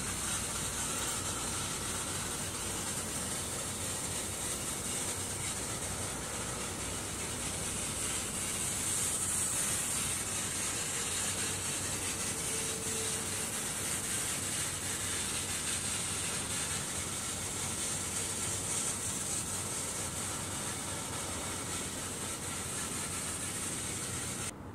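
Steady, even hiss of open-air seaside ambience with no distinct events; it drops off abruptly near the end.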